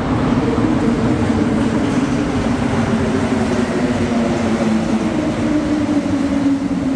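Montréal Métro Azur (MPM-10) rubber-tyred train pulling into the station. A steady loud hum and rumble, with a motor whine that slowly drops in pitch as the train slows.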